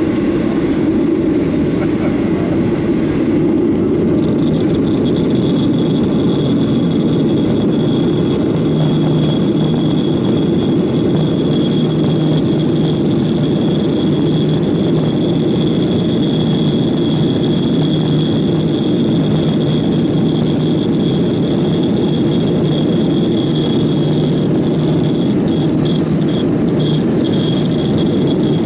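Cabin noise inside a Boeing 737-800 taxiing: a steady rumble from the CFM56-7B engines at low thrust and the airframe. A thin, steady high whine joins about four seconds in.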